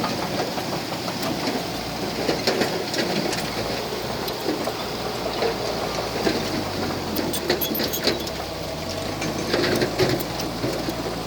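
Heavy diesel construction machinery running, with a steady low engine drone under constant clanking and rattling of metal and rock. The engine's pitch shifts slightly a few times.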